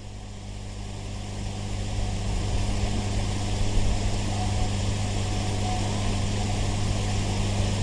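Background noise of the recitation recording in a pause between verses: a steady low electrical hum under an even hiss, rising in level over the first two seconds and then holding steady.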